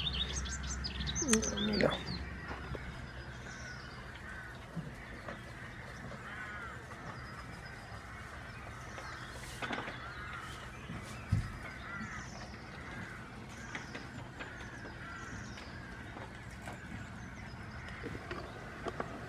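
Small birds chirping over and over in short repeated phrases. A louder animal call stands out in the first two seconds, and there is a single knock about eleven seconds in.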